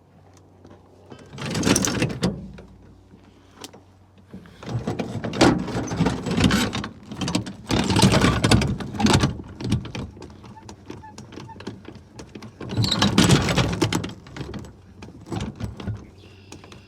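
Metal clattering and scraping as a jack is reset under the scrap truck's frame, in three bursts, the longest lasting about five seconds, over a faint steady low hum.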